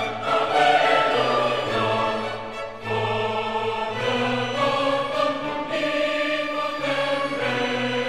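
Choral music: voices singing long held notes over a slowly changing bass.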